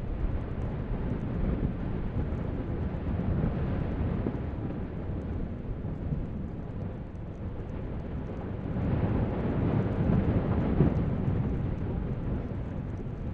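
Erupting volcanic vent throwing up a lava fountain: a steady low rumble that swells louder about nine seconds in and eases near the end.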